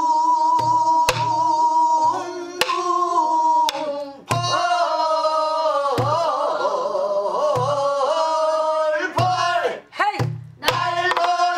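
A woman singing pansori in long, held, wavering notes to the slow jinyangjo rhythmic cycle. She accompanies herself on a buk barrel drum: deep strokes on the drumhead and sharp clicks of the stick on the drum's wooden shell fall every second or so.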